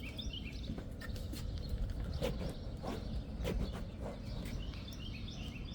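Birds chirping in short repeated notes at the start and again near the end, with a few scattered knocks and clicks over a steady low rumble.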